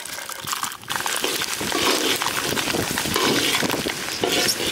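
Garlic cloves frying in hot oil with cumin and coriander seeds in an iron kadai: a dense sizzle full of fine crackles, which swells to a steady, louder sizzle about a second in as the garlic hits the oil and is stirred.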